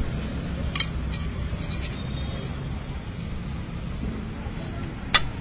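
Slotted metal spatula knocking against the pan twice, once about a second in and again near the end, over a steady low background rumble.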